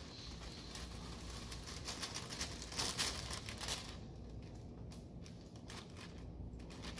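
Sheet of wax paper crinkling and rustling as it is unfolded and pressed against a van's lower body panel, in an uneven run of crackles that is loudest about three seconds in.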